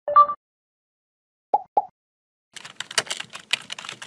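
Rapid computer-keyboard typing, a dense run of key clicks starting about halfway through. Before it come a short two-note blip at the start and two soft clicks a little after a second and a half.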